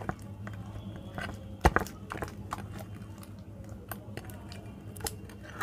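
Glossy slime being kneaded and pressed by hand, giving irregular sticky clicks and pops, the loudest about a second and a half in. A steady low hum runs underneath.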